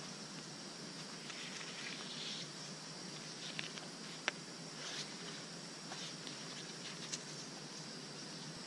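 Dry bark being peeled apart and handled by hand: light crackling and rustling with scattered small clicks, one sharp click about four seconds in, over a steady high hiss.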